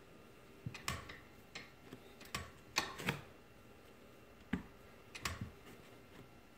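Irregular light knocks and taps of shoes on a step platform during slow sideways step-ups, about a dozen spread over the seconds, the loudest pair near three seconds in.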